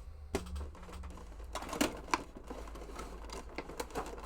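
Cardboard figure box and plastic packaging being handled and opened by hand: irregular clicks, taps and scrapes, over a low steady hum.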